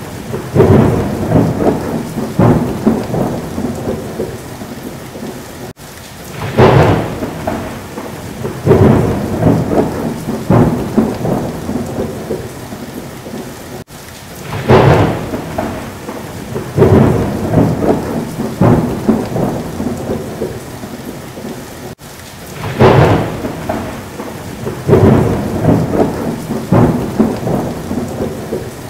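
Thunder rumbling over steady rain, a looped thunderstorm recording that repeats the same stretch about every eight seconds. Each pass opens with a loud rumble followed by several softer ones.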